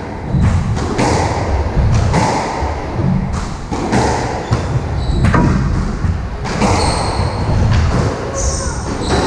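Squash rally: the ball cracking off rackets and thudding against the court walls about once a second, echoing in the enclosed court, with rubber-soled shoes squeaking briefly on the wooden floor.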